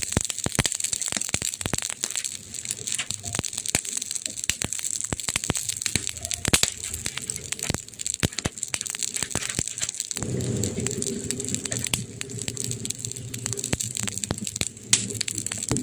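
Wood fire crackling, with dense irregular pops and snaps over a steady hiss. About two-thirds of the way through, a low steady rumble joins beneath the crackles.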